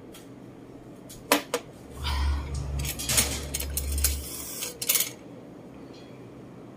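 Ice clinking in a glass mug of water as it is drunk from and set down on a table: a few sharp clinks and knocks spread over the first five seconds.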